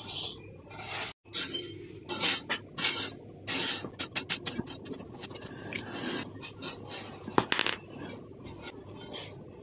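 Hands working the wires of an incandescent serial light string, twisting the two wire ends together to bypass a broken bulb: irregular scraping and rubbing with small clicks, and one sharper click about seven and a half seconds in.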